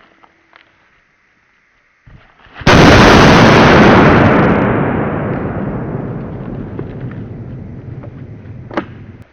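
A single loud rifle shot, slowed down: a sudden boom about two and a half seconds in that fades slowly over some six seconds, then cuts off abruptly near the end.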